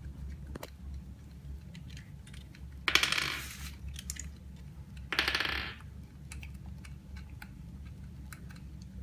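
Metal screws on the laminating machine's mold being worked loose with a hand tool: small metallic clicks, and twice a short rasping grind, about three and five seconds in, as a tight screw turns. A steady low hum runs underneath.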